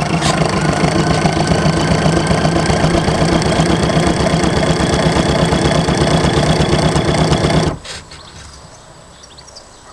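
Electric motor and flex drive of an RC boat's outboard running under way, a steady buzzing hum with a fast even rattle, cutting off abruptly about eight seconds in. The boat is slow, which the owner puts down to either the nylon strimmer-line flex drive not spinning freely in its sheath or a failing motor.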